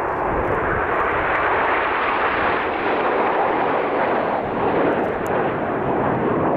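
Jet noise from a formation of Red Arrows BAE Hawk jets flying past: a loud, steady rushing sound without a clear engine whine, building over the first second and then holding.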